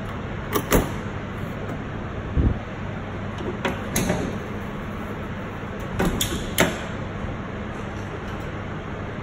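Steady hum with about six sharp clicks and knocks at uneven intervals: a quick pair under a second in, single ones at about two and a half and four seconds, and another pair around six seconds, at a Rational CombiMaster combi oven that has just been switched off and on again.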